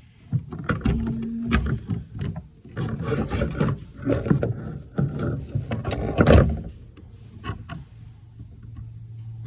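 Knocks, clicks and rustling from parts being handled and moved about: the pulleys, screws and bungee of a fitness machine being taken apart. The loudest knock comes about six seconds in, and the handling thins out after that.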